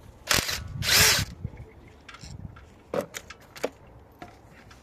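Two short bursts of a small power tool, likely used to unbolt the ignition coil, in the first second and a half, followed by a few sharp clicks of tools or parts being handled.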